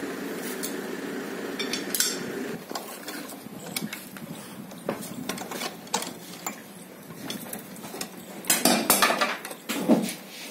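Steel hand tools and loose engine parts clinking and clanking against each other on a stripped-down Tata Ace Mega engine: irregular metallic taps, with a cluster of louder clanks near the end. A steady background noise cuts off after about two and a half seconds.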